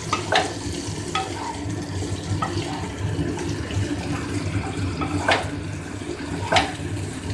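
Cauliflower, potato and tomato pieces sizzling in oil in a wok while a spatula stirs them. The spatula knocks and scrapes on the pan now and then, loudest about five and six and a half seconds in.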